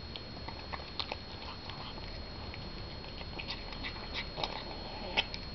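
Ginger cat chewing and gobbling cat food from a plastic bowl: a run of irregular small wet clicks and smacks, with a louder smack near the end.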